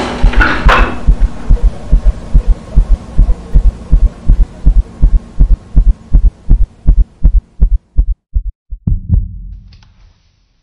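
Heartbeat sound effect: deep thumps several a second over a low hum. The beats grow further apart while the hum fades, and both stop about nine seconds in.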